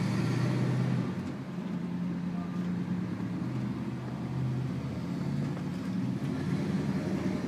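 Pickup truck V8 engine running steadily at low revs, heard from inside a cab. It is a little louder for the first second, then settles into an even drone.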